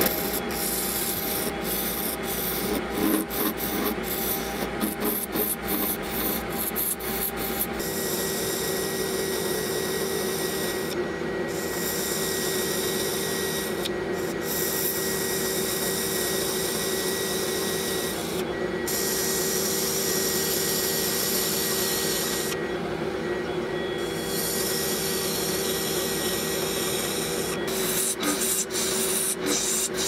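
Lathe spinning a cast-resin blank while a hand-held turning tool cuts it, peeling off long ribbons of resin shavings: a steady scraping hiss over the running lathe. Scattered sharp ticks come in the first several seconds and again near the end.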